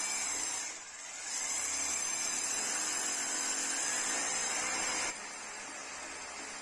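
Electric drill running under load. It eases off briefly about a second in, then runs on and stops suddenly about five seconds in.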